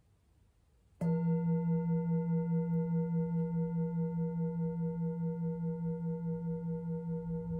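Engraved Tibetan singing bowl, held on the palm, struck once with a wooden mallet about a second in, then ringing on with a low hum and several higher overtones. The ring wavers about four times a second and fades slowly.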